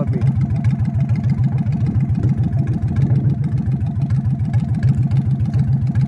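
A motor running steadily: a low, even rumble with a fast, regular pulse that does not change.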